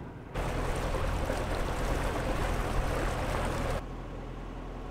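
Narrowboat's engine running steadily under a loud rushing noise that starts abruptly just after the start and cuts off suddenly about a second before the end.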